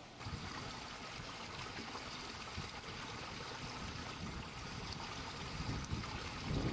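Steady rush and trickle of flowing water from a small stream or irrigation channel, growing a little louder near the end.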